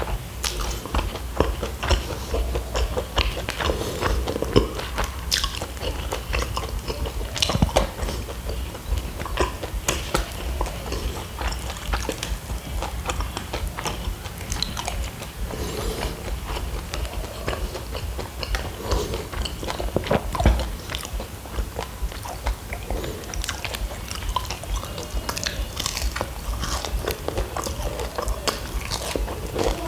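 Close-up chewing and crunching of kunafa, its crisp shredded-pastry top and soft cheese filling, with many irregular small clicks and crackles over a low steady hum.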